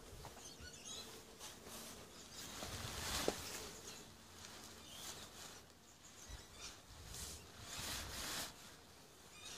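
Faint rustling and swishing of a pop-up shower tent's fabric as its sprung frame is twisted and folded down, coming in several bursts, with one sharp click about three seconds in.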